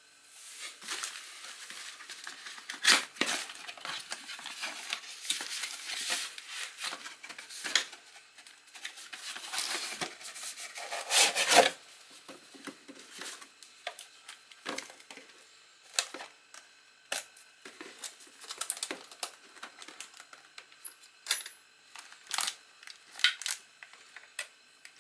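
Unboxing handling noise: a cardboard box and an aluminium tool case being moved and opened, with plastic wrap rustling and small clicks and rattles of the case and its loose parts. The sounds are irregular. The loudest scrapes come about three seconds in and again near the middle, and there are sparser light ticks near the end.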